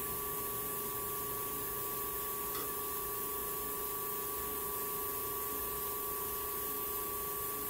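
Steady low hum with two faint constant tones and an even hiss, with no distinct sound event: background room tone.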